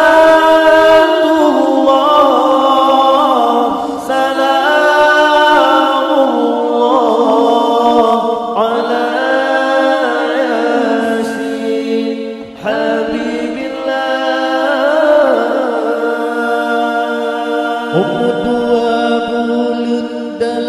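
Men singing an unaccompanied qasidah, a devotional song praising the Prophet Muhammad, in long, ornamented phrases that rise and fall. A new phrase begins about every four seconds.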